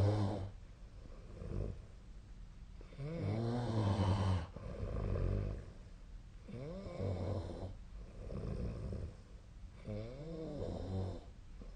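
A person snoring in their sleep: about four snores, roughly one every three and a half seconds, each a wavering pitched snore followed by a softer breath.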